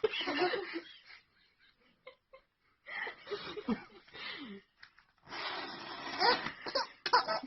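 A person laughing in wheezing, breathy bursts, three fits separated by short pauses.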